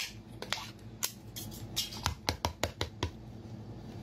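Clear plastic food container crinkling and clicking as it is gripped, squeezed and tipped over: a run of sharp, irregular crackles, thickest in the middle.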